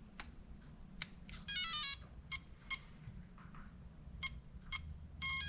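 Electronic beep tones from a Castle Mamba Micro X2 brushless ESC, sounded through its motor as it is powered up for throttle calibration: a quick run of stepped notes about a second and a half in, a few single beeps, then another run of notes near the end. A few faint clicks come early on.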